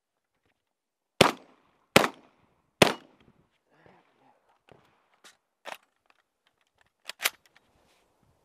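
Vepr-12 semi-automatic 12-gauge shotgun firing: three loud shots about 0.8 s apart a little over a second in, a quieter stretch of light clicks, then a quick pair of shots and one more loud shot near the end.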